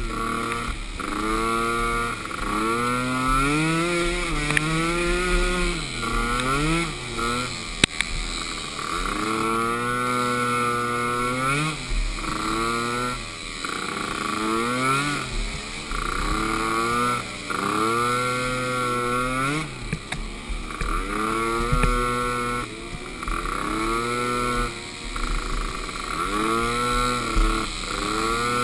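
Small youth ATV engine racing, its pitch climbing and dropping again every second or two as the throttle is opened and eased through the course.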